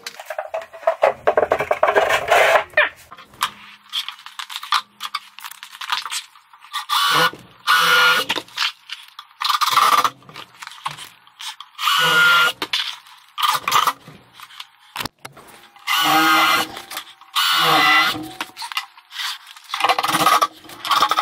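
Cordless drill-driver driving screws into a plywood cabinet side, in about seven short runs of about a second each with pauses between them.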